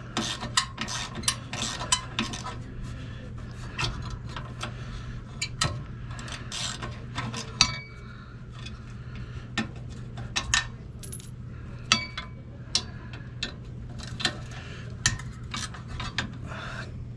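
A wrench working the bolts of an RV's rear stabilizer jack: irregular metal clicks and clinks, quick and dense for the first couple of seconds, then spaced out, a few of them ringing briefly. A steady low hum runs underneath.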